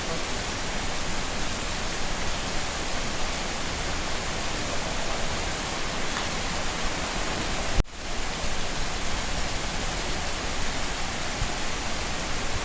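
Steady, heavy rain making an even hiss, with a short click and a brief gap a little under eight seconds in.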